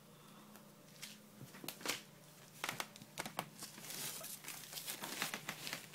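Puppies scuffling and play-wrestling close to the microphone: irregular clicks, scratches and crinkly rubbing noises. They start about a second in and grow denser in the second half.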